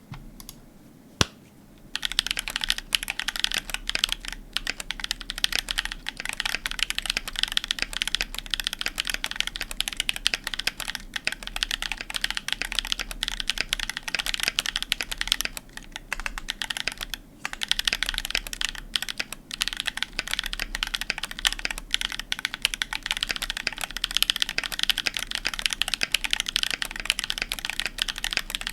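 Typing on a Percent Canoe mechanical keyboard with OG Holy Panda tactile switches (67 g springs, lubed with Tribosys 3204) in an aluminum plate, damped with foam between PCB and plate and in the case, under JTK Raindrop keycaps. A single click about a second in, then continuous typing from about two seconds, with a couple of brief pauses.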